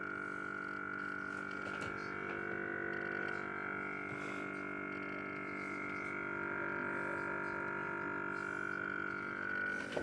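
Whirlpool WRF560SMYB refrigerator running: a steady whine over a lower hum, holding constant throughout.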